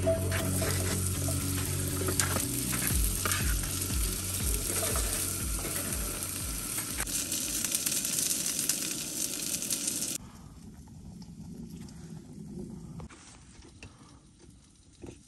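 Diced potatoes sizzling and frying in a hot, oiled cast-iron skillet on a camp stove. About ten seconds in it cuts off suddenly to a much quieter, faint crackle of a small campfire.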